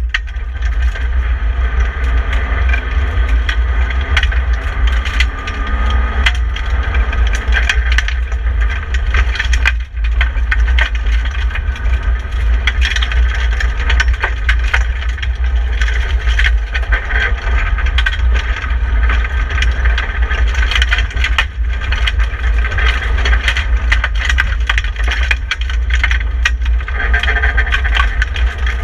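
BMW 318i (E30) rally car's four-cylinder engine running at stage speed on a gravel road, heard from inside the roll-caged cabin over a heavy low rumble. Frequent clicks and rattles from stones and the shell run through it.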